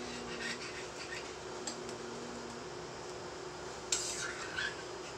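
A metal spoon stirring chicken and potatoes in sauce in a stainless steel pot: soft scraping and rubbing, with one sharp clink of spoon on pot about four seconds in. A faint steady hum runs underneath.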